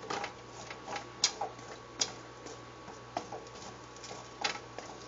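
Spatula knocking and scraping against a nonstick frying pan as asparagus pieces are stirred and tossed, giving irregular sharp clicks about once or twice a second.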